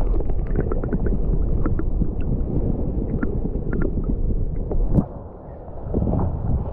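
Muffled underwater rumble of river current heard through a submerged action camera, with a scatter of faint ticks and clicks. About five seconds in, a sharp splash as the camera breaks the surface, then open-air splashing water and wind.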